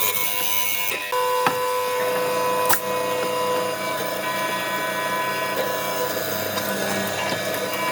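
Wood being worked with a tool: a steady scraping, sawing-like noise with a machine-like hum that sets in about a second in, and two sharp clicks in the first three seconds.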